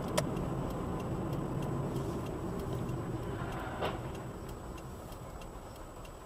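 Car cabin road and engine noise as heard by a dashboard camera, a steady low rumble that slowly dies away as the car slows, with faint regular ticking. There is a sharp click just after the start and a brief louder burst about four seconds in.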